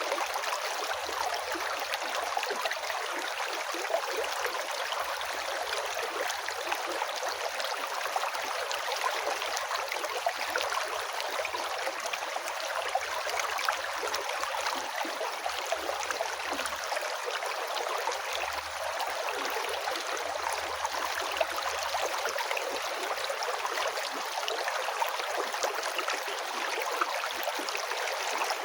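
A river's water flowing steadily, an even wash of moving-water sound with no breaks.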